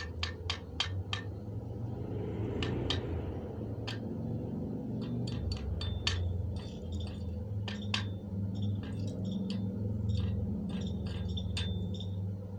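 Slag being knocked off a fresh E6013 arc-weld bead on steel with a small hand tool. A quick run of sharp metal taps opens it, followed by irregular clinks, some with a short metallic ring, over a steady low hum.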